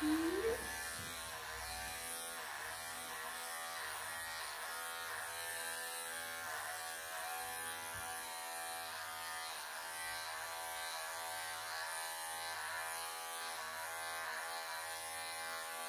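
Cordless electric pet clippers running steadily with a buzzing hum while shaving a Maine Coon's body coat, the pitch dipping briefly again and again as the blade works through the fur.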